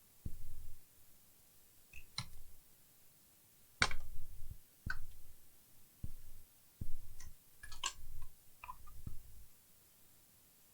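Irregular light clicks and knocks of small hard objects being handled, about ten of them spread unevenly; the loudest come about four and seven seconds in.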